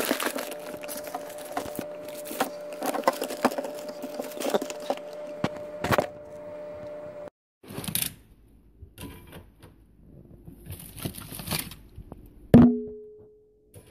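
Plastic-wrapped frozen food and bags crackling and clicking as items are shifted around inside a freezer, over a steady hum. After a brief gap there is more scattered rustling, then the freezer door shuts with one loud thump near the end.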